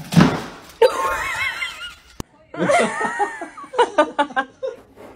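A person laughing in quick repeated bursts through the second half, after a brief wavering high-pitched sound in the first two seconds.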